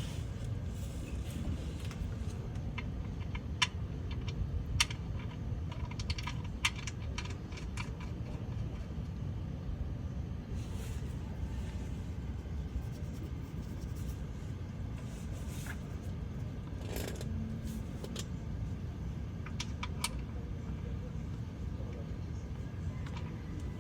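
Light metallic clinks and taps, several in the first eight seconds and a few more near the end, over a steady low rumble.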